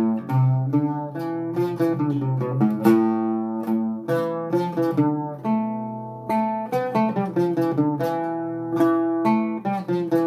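Oud played solo: an instrumental melody of plucked single notes, several a second, each ringing briefly, in makam Nihavend.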